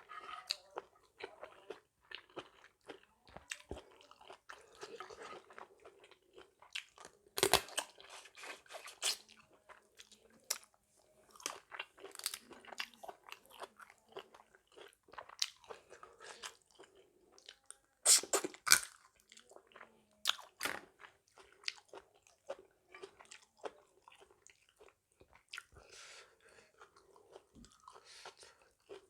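A person chewing and crunching food close to the microphone: a steady run of small wet crackles and clicks, with louder sharp crunches about seven and a half seconds in and again around eighteen to nineteen seconds in.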